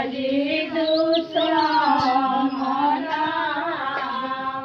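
Women singing a mangal geet, a traditional auspicious wedding folk song, together in long held notes.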